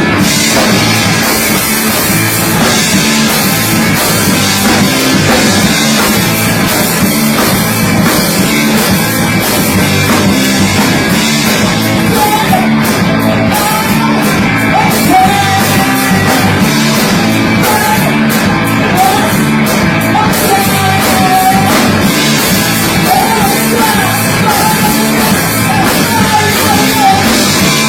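A rock band playing loud and distorted, a dense wall of sound throughout. A wavering high tone weaves through it from about halfway.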